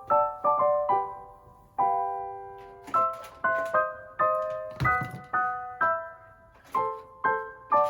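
Background piano music: a light melody of struck notes, a few a second, each ringing and fading.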